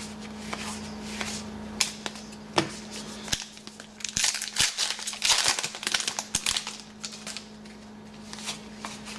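Trading cards being shuffled and flipped in the hands with small sharp clicks. About four seconds in comes a couple of seconds of crinkling and crackling as a foil trading-card pack wrapper is handled, then quieter handling.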